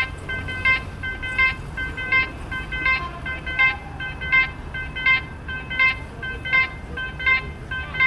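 Railway level-crossing warning bell ringing, a bright electronic ding repeating evenly about every 0.7 seconds. It signals that a train is approaching and the crossing is closed.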